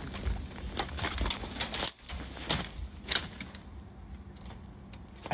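Footsteps crunching through dry grass and twigs: irregular crackles and snaps, busiest in the first three seconds, then fainter.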